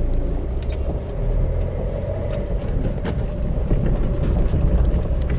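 Car driving, heard from inside the cabin: a steady rumble of engine and road noise.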